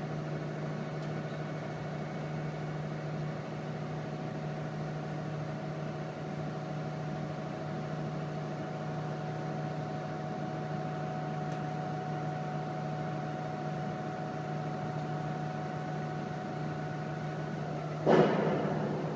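Steady machinery hum with a low tone and a few higher steady tones. About 18 seconds in, a sharp knock rings briefly.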